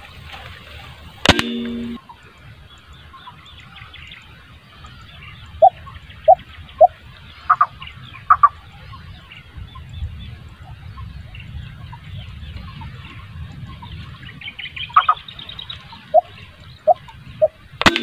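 Two airgun shots, one about a second in and one at the very end, each a sharp crack followed by a brief low ring. Between them, short bird calls come in small groups, including two runs of three quick notes.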